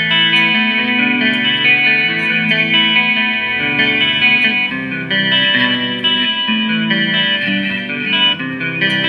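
Instrumental music: a run of sustained pitched notes, changing about every half second.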